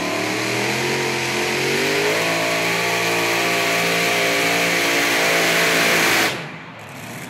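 Supercharged engines of a modified pulling tractor at full throttle under load pulling the sled. The pitch climbs over the first couple of seconds and then holds steady. A little after six seconds the sound drops off suddenly as the back engine lets go in a fire, which is suspected to be a fuel line.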